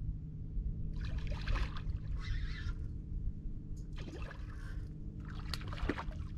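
Water splashing and sloshing in several short bursts over a steady low hum.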